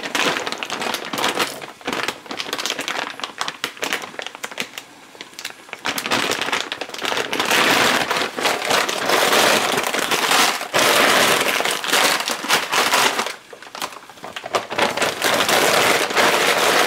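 Plastic bag of frozen broccoli florets crinkling and rustling as it is opened and handled, louder in two stretches, around the middle and near the end.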